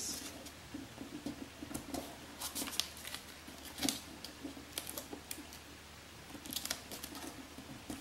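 Square sheet of origami paper being folded and creased by hand: soft rustling with scattered short, crisp crackles as the folds are pressed flat.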